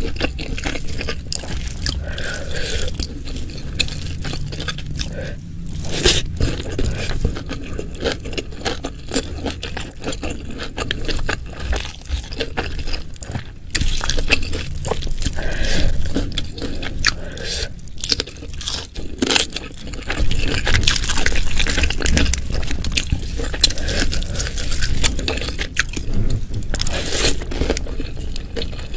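Close-miked eating: steady, irregular chewing and crunching of food from a meal of fried fish, jengkol balado and stir-fried water spinach with sambal.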